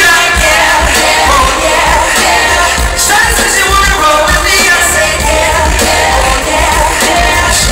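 Live R&B concert: a male singer's voice and loud, bass-heavy backing music over an arena PA system.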